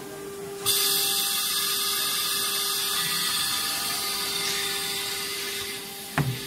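Automatic-labelling CNC router running: under a second in, a loud hissing, whirring machine noise starts suddenly and holds steady, fading slightly. A single sharp knock comes near the end, over a steady low hum.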